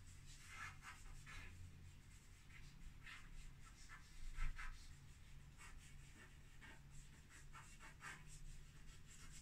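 Faint, irregular scratching of a pastel stick drawing short, quick lines on the board, with a slightly louder cluster of strokes about four and a half seconds in.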